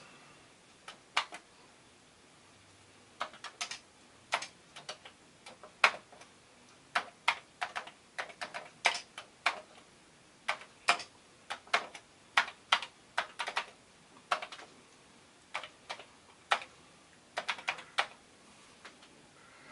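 Keys of a Commodore 64 keyboard being pressed, single clacks and short quick runs with pauses between. The keyboard has just been cleaned and reassembled, and its keys are being tried one after another to check that they respond.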